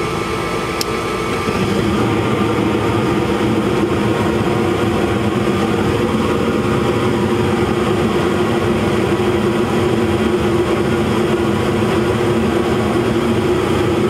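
Gas furnace firing: a click about a second in, then the steady running noise of the burners and fan swells slightly and holds, the furnace staying lit on a freshly cleaned flame sensor.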